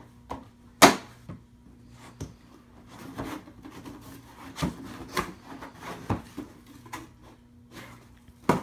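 Cardboard box and small plastic-wrapped items being handled while unboxing: a string of scattered rustles, crinkles and light knocks, the sharpest about a second in.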